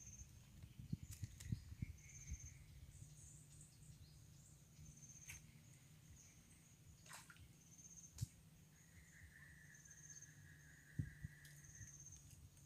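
Quiet outdoor ambience: a short high-pitched chirp from a small animal repeats every couple of seconds, and a longer, lower call comes near the end. A few soft low knocks sound, the loudest about eleven seconds in.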